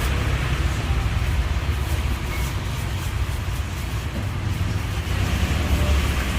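Steady low rumble of road traffic, engines running without a break at an even level.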